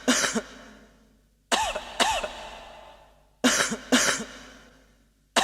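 A person's coughs come in pairs, a double cough about every two seconds at a steady spacing, each dying away in a short echoing tail. The coughing is repeated in rhythm as the opening of a cough-remix mezdeke dance track.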